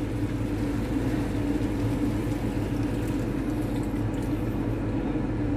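Soy sauce poured from a bottle onto pork pieces in a steel pan, a steady splashing pour over a constant low hum.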